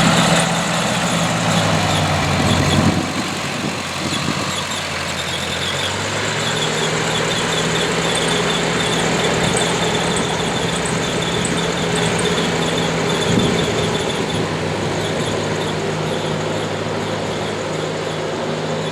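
Ford 8N tractor's four-cylinder flathead engine running on a test drive, its engine speed changing a few seconds in. No whine or grind from the freshly repaired rear end: it runs quiet, 'not a whisper'.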